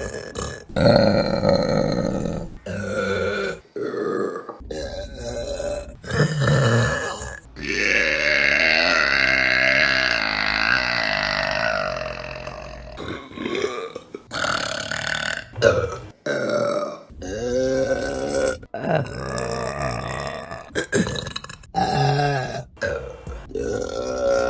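Women burping, one burp after another, each cut short and followed by the next; most are brief, with one long burp lasting about five seconds near the middle.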